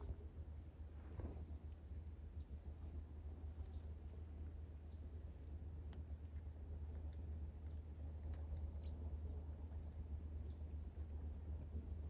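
Small woodland songbirds giving many short, high, thin calls and chirps scattered throughout, over a steady low rumble.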